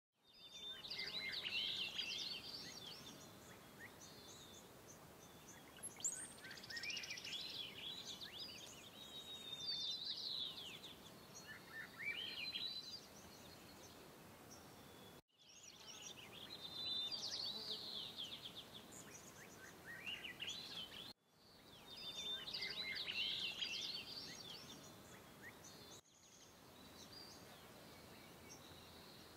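Birdsong ambience: several small songbirds chirping and trilling over a faint outdoor hiss. The recording cuts out sharply and restarts three times, spliced or looped.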